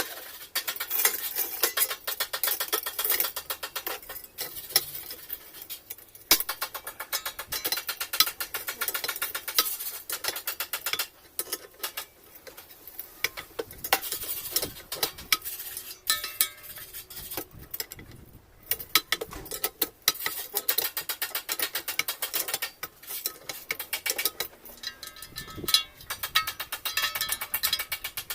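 Metal parts and tools clinking and rattling in quick, irregular taps, with short pauses, as a washing machine's mechanism is handled and put together.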